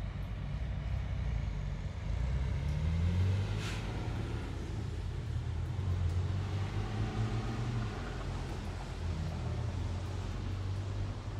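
Road traffic in the rain: a steady low rumble of passing cars and trucks, their engine tones rising and falling as they go by, over a continuous hiss of wet tyres on the road. One short sharp sound stands out about four seconds in.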